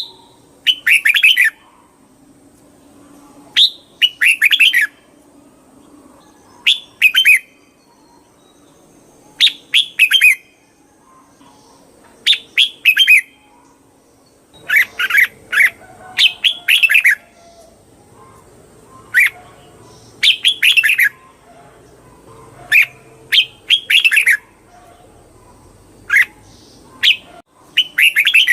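Red-whiskered bulbul singing: short, quick phrases of a few bright notes, repeated every one to three seconds.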